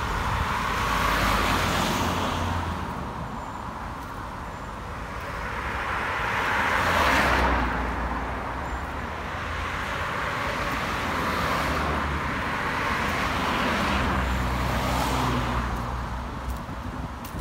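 Road traffic: cars passing one after another, each swelling and fading, with the loudest about seven seconds in.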